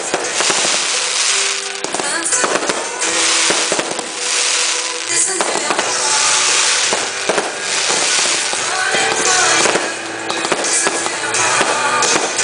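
Fireworks display: aerial shells bursting one after another with dense crackling, over music playing.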